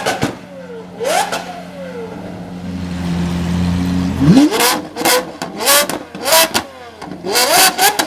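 Lamborghini supercars with loud modified exhausts revving hard in quick blips, each rev rising and falling in pitch, with sharp cracks from the exhaust. One rev comes about a second in; a steady engine note then swells for a couple of seconds before a rapid string of revs in the second half.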